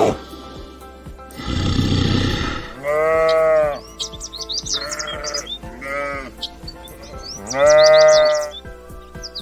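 Bleating farm animal calling about four times over background music, the loudest bleats about three seconds in and near the end. A short rough, noisy call comes just before them.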